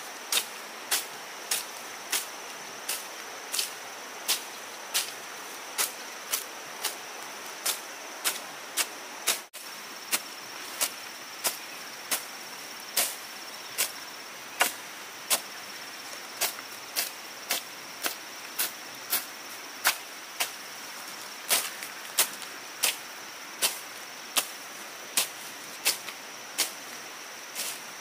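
Machete slashing through grass and weeds in quick, regular strokes, about three swishes every two seconds, each a sharp cut. A steady high-pitched insect drone runs underneath.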